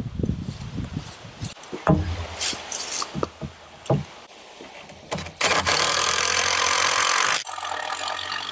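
A few scattered knocks and clicks, then about five seconds in a Dewalt DCM575 60V FlexVolt battery chainsaw starts up and runs with a steady whine, loudest for about two seconds before running on more quietly.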